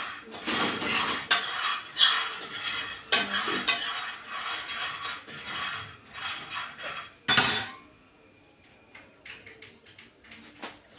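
Dishes and cutlery clattering as they are handled, with irregular knocks and clinks and one loud crash a little after seven seconds. After it only a few faint clicks remain.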